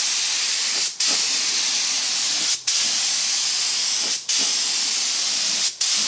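Compressed-air gravity-feed spray gun hissing as it sprays sealer onto a wood panel, in passes of about a second and a half. The hiss cuts off briefly four times, between passes.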